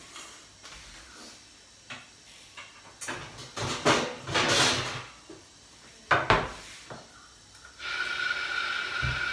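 A kitchen cabinet door under the sink opened and shut, with knocks and rattling of things being moved inside it. Near the end the tap is turned on and water runs steadily into the sink.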